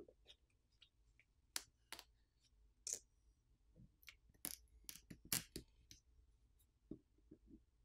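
Faint, irregular clicks and taps of small hand tools and parts being handled while a Samsung Galaxy Z Flip6 phone is taken apart, about a dozen in all.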